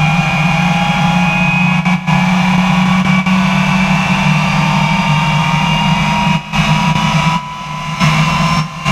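Jet engine of the Bone Shaker jet semi truck running while the truck stands still: a steady low rumble under several whining tones that slowly rise in pitch. The level dips briefly a few times near the end.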